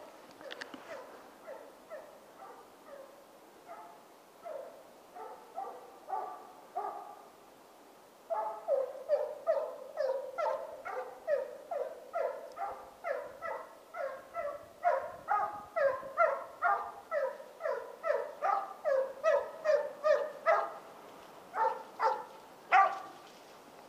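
Petit Basset Griffon Vendéen hound baying while following game on scent, in a run of barks. They are fainter and spaced at first, then about eight seconds in they grow louder and faster, about two a second, with the loudest bark near the end.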